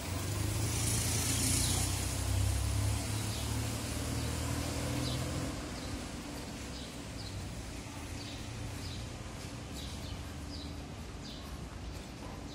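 A motor scooter engine passes close by, its noise dropping away about five and a half seconds in. Then a bird chirps repeatedly over quiet street background, with short high chirps about twice a second.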